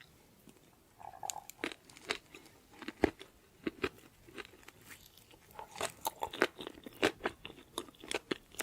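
A person biting into and chewing crispy fried chicken: a run of short, sharp crunches starting about a second in and growing busier toward the end.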